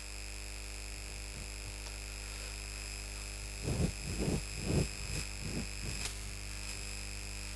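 Cloth duster rubbed across a whiteboard in about half a dozen short wiping strokes, bunched in the middle, over a steady electrical hum.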